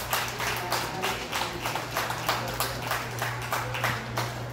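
Hands clapping in a steady rhythm, about three claps a second, over a low steady hum.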